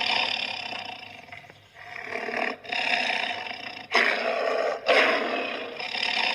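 Lion roaring: about five long, loud roars in quick succession.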